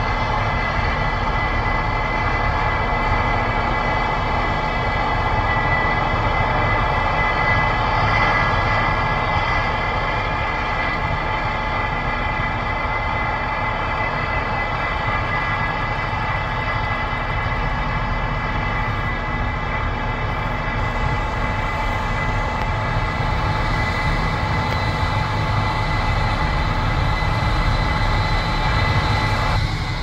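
Case IH 8230 combine harvester running while it harvests soybeans and unloads through its auger into a grain cart: a steady engine rumble under a constant high whine of several steady tones.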